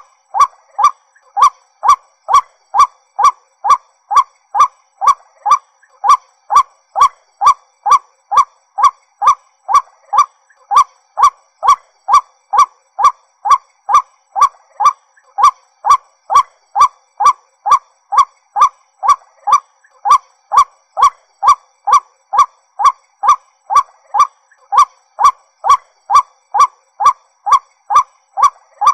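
White-breasted waterhen calling one short note over and over, about two a second, at an even, unchanging pace.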